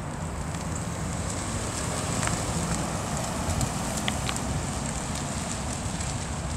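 Chevrolet Caprice police sedan driving slowly past: a low, steady engine and tyre rumble that grows a little louder about halfway through, mixed with wind noise on the microphone and a few faint clicks.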